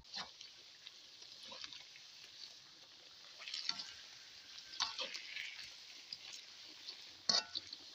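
Bananas frying in oil and sugar in a wok, a steady sizzle, with a metal spatula scraping and knocking the pan a few times, about three and a half, five and seven seconds in.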